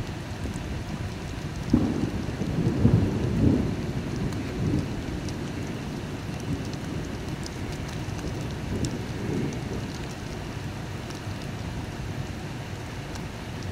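Steady rain with thunder: a sudden clap about two seconds in that rolls on for a couple of seconds, and a fainter rumble later on.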